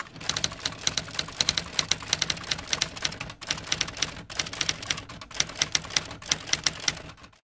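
Typewriter typing sound effect: rapid key clicks, about four or five a second, broken by a few short pauses, as on-screen text is typed out.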